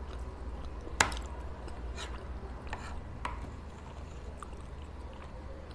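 Metal spoon clinking and scraping against a white serving tray while cutting rasabali in thickened milk: a handful of sharp clicks, the loudest about a second in.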